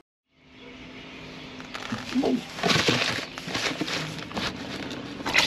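Clicks and knocks of hands working under a vehicle, with a short animal call that rises and falls about two seconds in. A rush of water starts just at the end.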